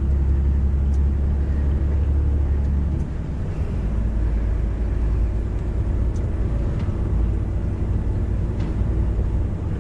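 Truck's diesel engine droning steadily, heard inside the cab over road noise; about three seconds in the low engine note shifts and eases slightly.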